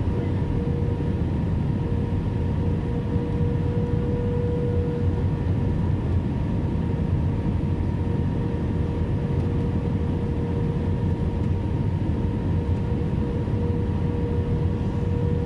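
Cabin noise inside an Airbus A320 on approach: the steady rumble of its IAE V2500 turbofan engines and rushing airflow, with a steady hum that fades out partway through and comes back near the end.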